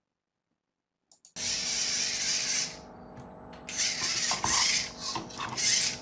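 VEX IQ clawbot's small electric drive and arm motors whirring in bursts as the robot runs a preset routine. There is one run of about a second and a half, a short lull, then several shorter runs close together.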